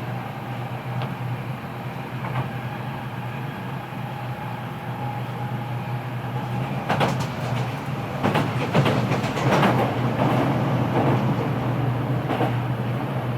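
Kita-Osaka Kyuko 9000-series subway car running, heard from the floor above the motor: a steady underfloor hum from the Toshiba IGBT-VVVF drive and permanent-magnet synchronous motor, and wheel-on-rail noise. From about seven seconds in, sharp knocks and rattles from the wheels and rails come in and the sound grows louder.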